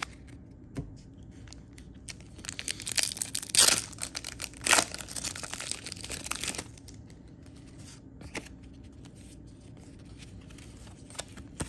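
Foil wrapper of a 1994 Upper Deck trading-card pack being torn open and crinkled. The wrapper crackles for a few seconds, with two sharper rips about a second apart.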